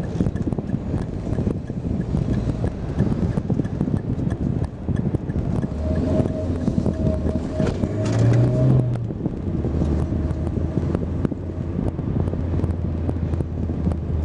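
Passenger car being driven, heard from inside the cabin: a steady rumble of engine and tyres on the road, with wind noise. From about six seconds in a low steady hum joins, swelling briefly around eight seconds in.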